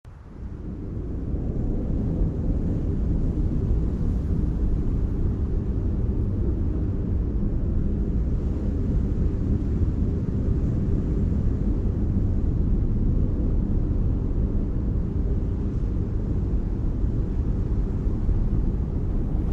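Steady deep rumble that fades in over the first two seconds and then holds, with faint steady tones inside it.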